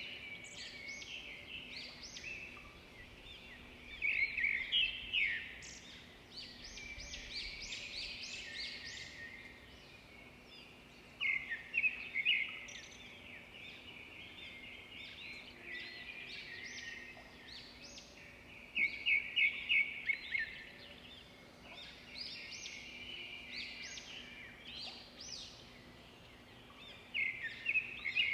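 Several birds singing and chirping in a park. One bird repeats a loud phrase of quick, evenly spaced notes four times, about every seven or eight seconds, over steady twittering from other birds.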